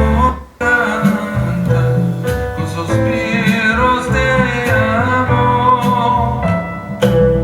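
Song with a singing voice over guitar and bass, played back through a Pioneer HTP-072 5.1-channel home theatre system. It cuts out briefly about half a second in, then carries on.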